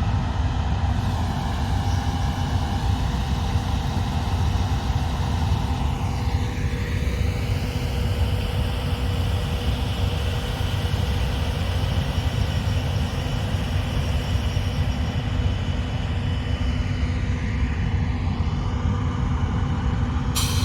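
Combine harvester running steadily under load: a heavy, even engine drone with steady machine tones over it, shifting in pitch twice as the machine moves. There is an abrupt change just before the end.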